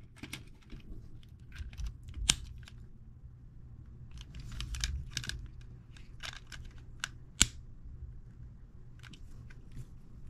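Hard plastic toy parts being handled and snapped together as wheels are pushed onto a Playmobil ATV's axles: scattered small clicks and taps, with two sharper snaps about two seconds in and about seven and a half seconds in.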